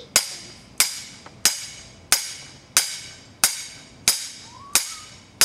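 Rear axle shaft of a 1960 Chrysler Imperial slammed down again and again into a black iron pipe to drive a new wheel bearing onto it: sharp metal clanks, each ringing out, in a steady rhythm of about three every two seconds. The bearing is not yet seated.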